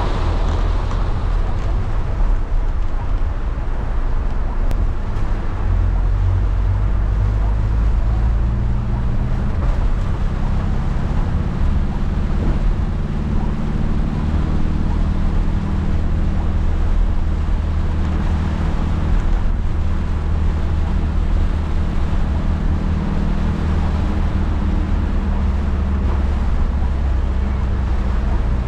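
Steady cabin noise inside a Toyota van driving through heavy rain: a low engine and road drone under a continuous hiss of rain and wet road.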